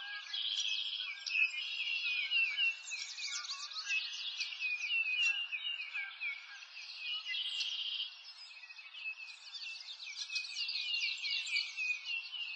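Many birds chirping over one another in a dense, steady chorus of quick high chirps, a little thinner for a couple of seconds past the middle.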